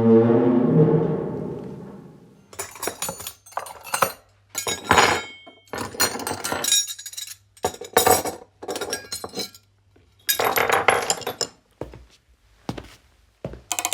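A deep ringing musical tone fades out over the first two seconds. Then come repeated short bursts of clinking and rattling from hard objects, each burst a jumble of sharp metallic or glassy clinks with brief gaps between.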